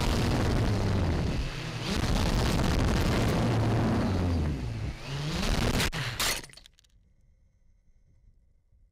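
Walkera QR X380 quadcopter's motors and propellers whirring over heavy wind noise on its onboard camera, the motor pitch rising and falling as it flies out of control. About six seconds in it crashes with two sharp knocks, and the sound cuts off to near silence.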